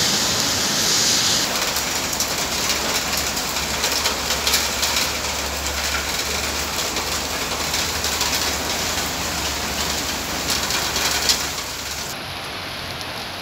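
Rain shower falling steadily, a dense hiss of rain with the patter of drops striking nearby surfaces. About a second before the end the sound changes abruptly, turning softer and duller.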